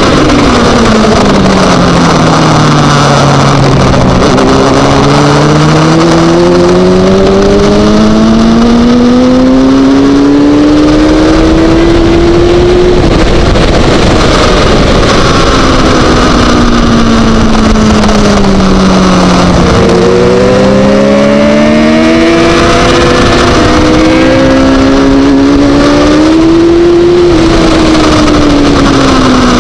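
Supersport racing motorcycle engine heard from an onboard camera, with wind rushing over the microphone. The engine note falls for the first few seconds, then climbs for about nine seconds. It drops again, rises in steps through gear changes from about twenty seconds in, and falls near the end.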